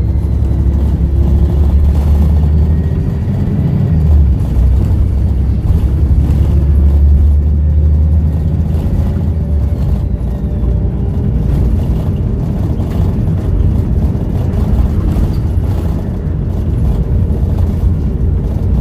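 Volvo B7RLE bus's six-cylinder diesel engine running under way with a steady low rumble, with faint whines that slowly rise and fall in pitch from the turbo and Voith automatic gearbox.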